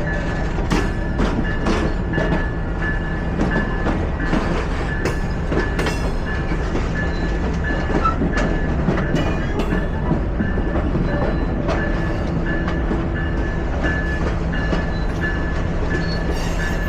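Napa Valley Wine Train running along the track: a steady rumble and hum, with the wheels clicking irregularly over the rail joints.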